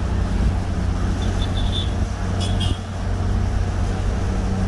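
Engine and road noise inside a moving vehicle's cabin: a steady low hum under tyre and wind noise, with a brief dip just before 3 s. A few short high chirps sound between about one and three seconds in.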